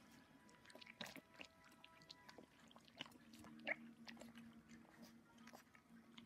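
Cocker spaniel puppies lapping milky food from a steel bowl: faint, irregular wet licking clicks, with a short squeak about three and a half seconds in.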